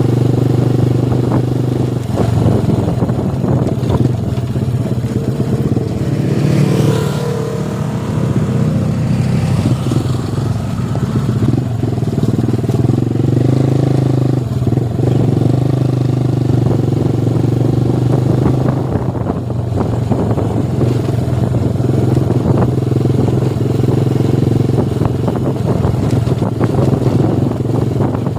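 Motorcycle engine running steadily while riding, its note rising and falling a little, with a brief rising whine about six seconds in.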